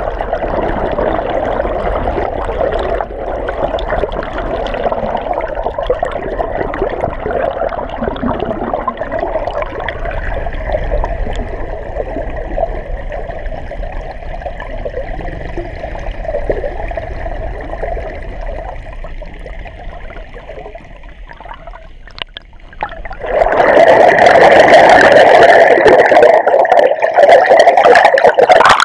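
Muffled rushing and gurgling of water heard through an underwater camera. About 23 seconds in it suddenly turns much louder and harsher, like water churning close to the surface.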